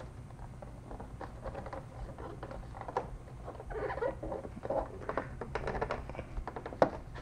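Plastic grille garnish being handled and slid into place against the plastic grille bar: light scraping, rubbing and small clicks of plastic on plastic, with a sharper tap near the end.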